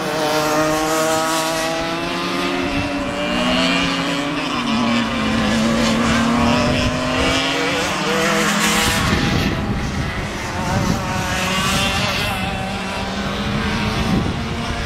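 Several racing kart engines running on the circuit at once. Their revs fall over the first few seconds, then rise again.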